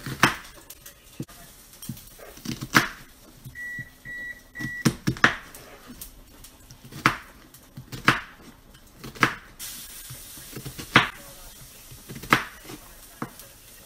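Chef's knife chopping onion on a plastic cutting board: single sharp knocks, roughly one every second. Three short electronic beeps about four seconds in.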